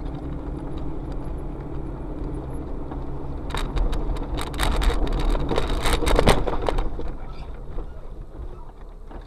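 Steady drone of a moving car heard from inside the cabin through a dashcam's microphone, with a cluster of sharp knocks and rattles from about three and a half to seven seconds in, loudest around six seconds.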